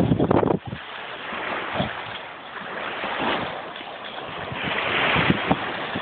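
A large dog splashing through shallow seawater for about half a second, then small waves washing up on a sandy shore, swelling once near the end.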